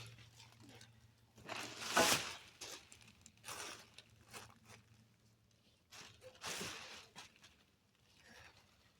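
Scattered rustling and scuffing noises of materials being handled, in several short bursts, the loudest about two seconds in, over a low steady hum that stops about halfway through.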